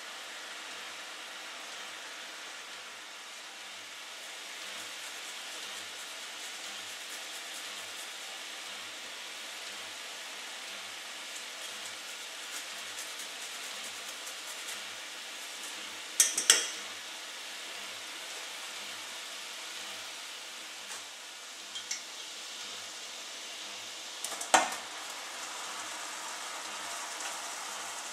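Liquid sizzling and bubbling steadily in a hot saucepan, with a few sharp knocks of utensil on pan, the loudest a little past halfway and again toward the end.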